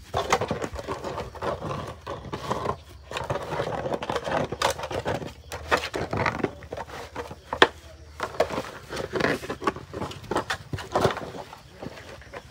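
A puppy playing with a plastic ball and toys: irregular scuffling, knocks and thumps from paws and ball, with one sharper knock a little past halfway.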